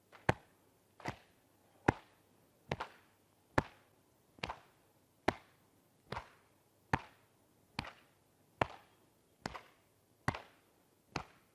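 Hands slapping the body in a steady rhythm, a little more than one slap a second, in the qigong exercise of tapping the Mingmen point on the lower back and patting the shoulder while twisting side to side. Sharp single slaps alternate with softer doubled ones.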